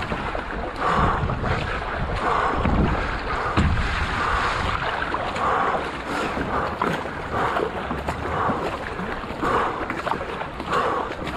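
Racing paddle strokes in water: the blade catches and splashes in a steady rhythm of about one stroke a second, with wind rumbling on the microphone, strongest in the first few seconds.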